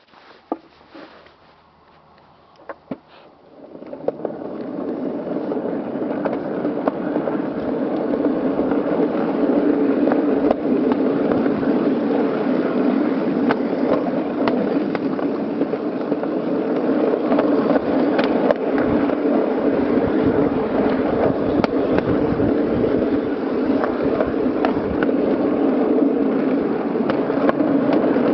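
Wheels of a 7.5 in gauge ride-on miniature train rolling on steel rails: after a few knocks, a steady rolling rumble builds up about four seconds in as the train gets under way, with sharp clicks here and there.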